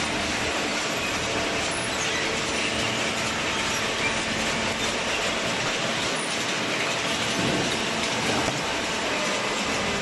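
Cardboard baler's inclined steel chain conveyor running, a steady mechanical clatter with a faint hum underneath as it carries loose cardboard up into the baler.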